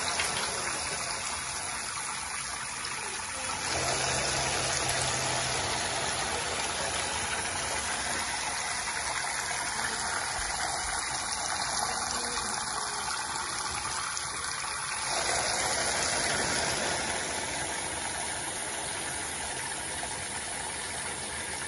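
Water running steadily into a bathtub as it fills.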